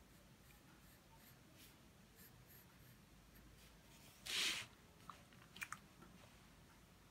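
Pencil drawing faintly on sketchbook paper. About four seconds in comes one louder scratchy sound lasting about half a second, then a few light clicks.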